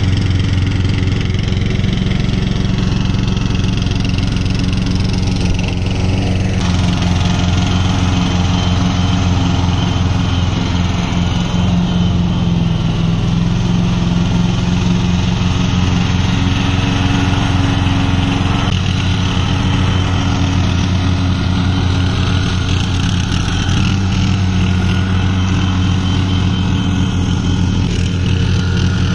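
Castlegarden XT190HD lawn tractor's engine running steadily while mowing, its note shifting slightly a couple of times.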